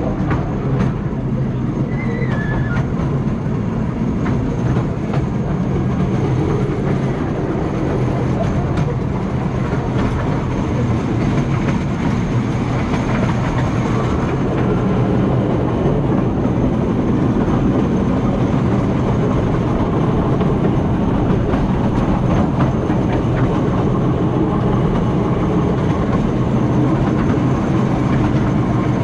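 Narrow-gauge park railway train running steadily, heard from an open-sided passenger carriage: a constant low rumble of the wheels on the track with light clicking and clatter from the rails.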